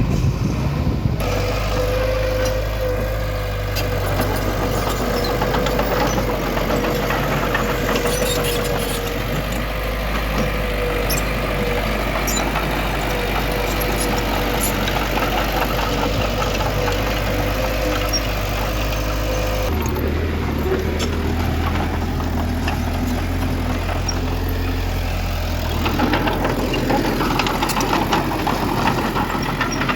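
Diesel engine of heavy earthmoving machinery running steadily, its note changing about a second in and again about two-thirds through, with a steady whine over it until the second change.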